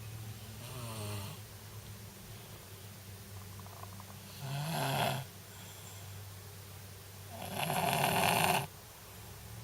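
A young boy snoring in his sleep: three snores about three seconds apart, faint at first, with the last, about eight seconds in, the longest and loudest. A steady low hum runs underneath.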